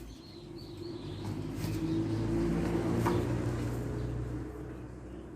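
A steady motor hum that builds to its loudest about halfway through and then fades.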